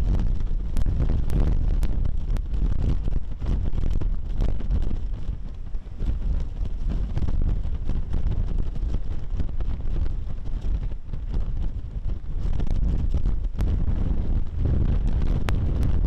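Typhoon-strength wind buffeting the microphone in a loud, continuous low rumble, with scattered sharp crackles and surf breaking against a rock breakwater beneath it.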